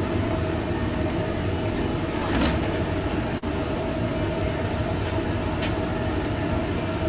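Steady rushing hum of a food trailer's kitchen exhaust hood fan, with a constant tone through it and one brief sharp noise about two and a half seconds in.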